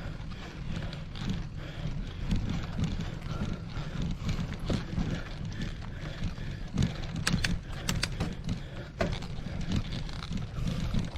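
Mountain bike rolling over a rough off-road trail: irregular knocks and rattles over a steady low rumble, with a few sharp clicks about seven to nine seconds in.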